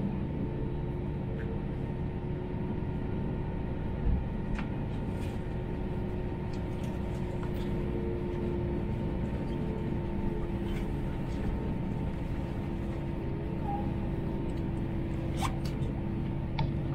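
Steady cabin noise of an Airbus A321 taxiing: the low hum of the jet engines with a few steady tones in it, and a few faint clicks and rattles from the cabin.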